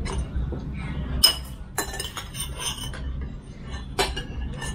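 Cutlery and dishes clinking at a meal: a few sharp clinks, one of them ringing on for about a second, over a low steady hum.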